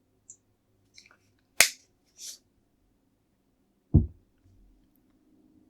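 Water bottle handled during a drink: a few small clicks and a sharp snap, a short hiss, then a dull thump about four seconds in, as of the bottle being set down on the table.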